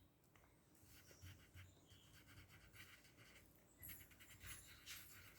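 Near silence with faint, irregular scratching of colouring strokes on paper, a little louder from about four seconds in.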